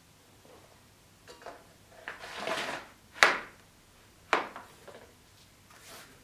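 A few light knocks and a short scrape, then two sharp clacks about a second apart, as of hard objects being handled and set down.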